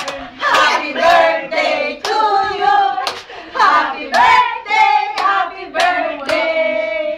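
A group of people singing together while clapping their hands in time, about two claps a second.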